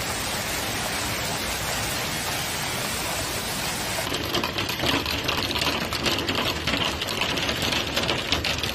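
Heavy hail falling: a steady hiss of hailstones at first, then, about four seconds in, a closer, denser patter of many sharp ticks as the hailstones strike the ground near the microphone.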